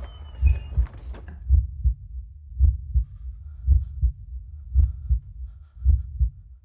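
Heartbeat sound effect: deep double thumps, a pair about every second, six times over.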